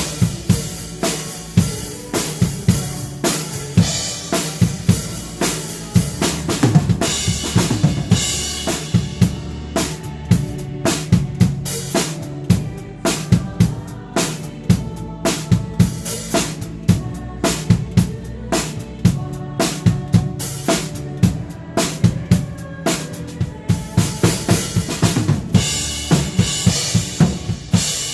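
Drum kit played along to a worship song: a driving kick-and-snare beat with rimshots. Cymbal crashes come about eight seconds in and again near the end, over the band's backing music.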